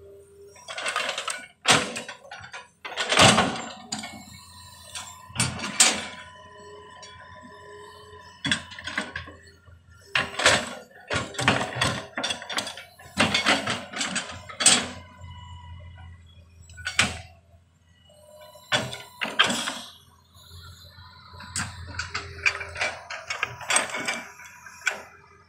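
Hydraulic excavator at work: irregular metallic clanks and knocks from the bucket and arm linkage over a low, steady engine hum.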